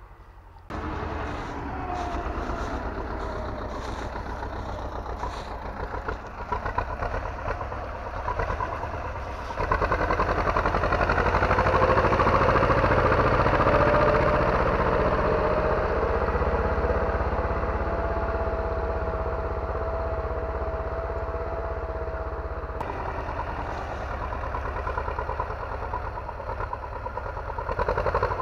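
T-25 tractor's two-cylinder air-cooled D-21 diesel running steadily under load while pulling a plow through the soil. It gets louder from about ten seconds in, and a steady whine sits over it for several seconds in the middle.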